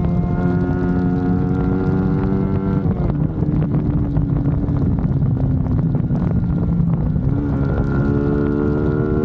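Motorcycle engine under way with wind buffeting the microphone. The engine note climbs slowly, drops sharply about three seconds in, holds lower, then climbs again near the end.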